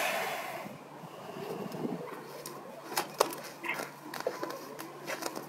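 Bull elephant seal hauling its heavy body over grass and onto a concrete path: a short rushing noise at the start, then scattered scrapes and knocks, with a couple of sharper knocks about three seconds in.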